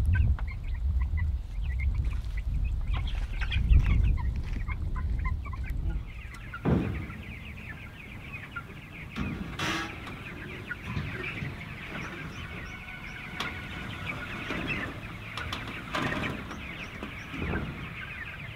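A flock of young Ross broiler chickens cheeping, many short high calls overlapping. For the first few seconds a low rumble sits under them, and a few short knocks come later.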